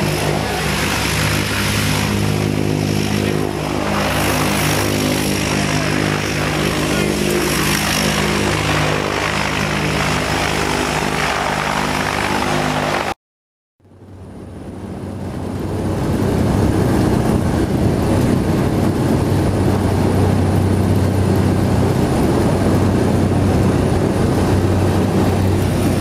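Small propeller plane's engine running with a steady, droning hum. About halfway through, after a brief silent cut, the engine is heard from inside the plane's cabin as a louder, noisier steady drone.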